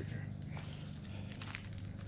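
Plant leaves rustling and footsteps as someone pushes through a pepper garden, with a few short crackles over a steady low hum.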